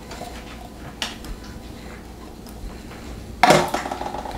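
Small rubber spatula scraping thick condensed soup out of a tin can, with light scrapes and taps, then a louder knock about three and a half seconds in.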